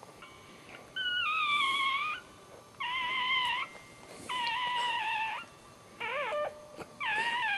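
Newborn dachshund puppy crying in a run of five high, wavering squeals of about a second each, the fourth short and quavering, as its mother licks it just after birth.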